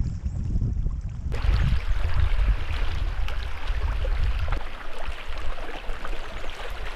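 Wind rumbling on the microphone, then, after an abrupt change about a second in, water splashing and lapping with small scattered drips and plops.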